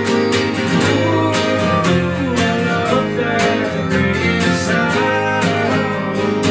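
Live drumless acoustic band playing: two acoustic guitars strummed in a steady rhythm with bass guitar underneath, and a melodic line gliding over them.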